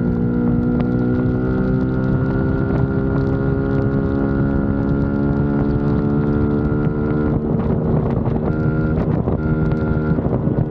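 Motorcycle engine running under way, its note climbing slowly for about seven seconds as the bike gathers speed, then breaking up and dropping back as the throttle is eased, with wind buffeting the microphone.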